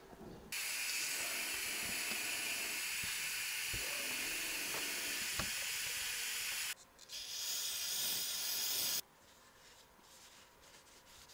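Compressed air hissing from an air tool held at the oil pan's drain hole, in two bursts: a long one starting about half a second in, a brief break, then a shorter one that cuts off sharply. Faint handling clicks follow.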